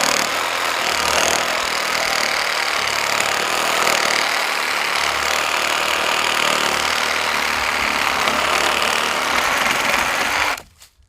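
Meterk 20V cordless reciprocating saw with a wood blade, sawing through hard, dry Osage orange. It runs steadily for about ten seconds, then stops abruptly near the end.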